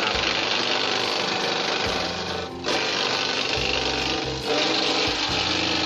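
Grass chopper running steadily as fresh Napier grass stalks are fed in and chopped. The sound dips briefly about two and a half seconds in.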